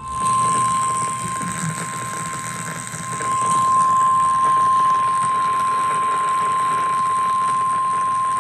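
Emergency Alert System attention signal on FM radio: one steady single tone at about 1050 Hz, the warning alarm tone that comes before a tornado warning message, over a faint haze of broadcast hiss.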